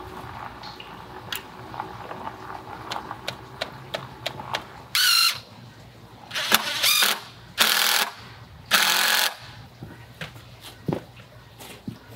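DeWalt cordless drill driving screws through a board into a wooden frame: four short bursts of the motor whirring, each about half a second long, between about five and nine and a half seconds in, the first rising in pitch as it spins up. Before them come light knocks and taps as the board and drill are handled.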